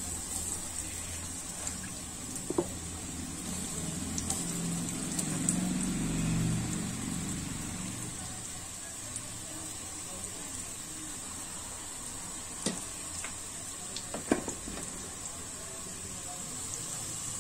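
Coated paneer cubes shallow-frying in oil in a wok, a steady sizzle. A few light clicks come on top, once near the start and twice near the end.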